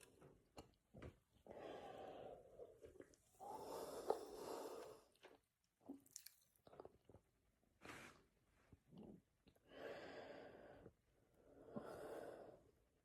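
Soft, breathy breaths in and out, four long ones, with small mouth clicks between them.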